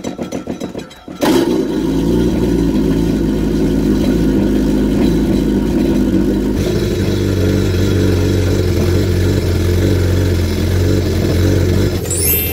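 A Yamaha jet boat's engine cranks and catches about a second in, then runs with the jet pump sounding rough, which the owner suspects is the impeller hitting a swollen impeller housing. About halfway through, the sound changes to the engine running with a steadier low hum, the pump sounding healthy.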